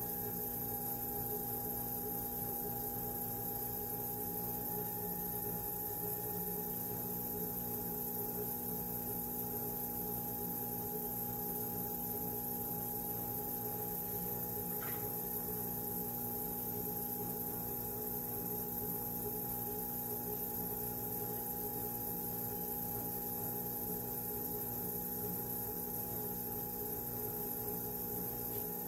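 Electric potter's wheel running, its motor giving a steady hum with a few fixed tones.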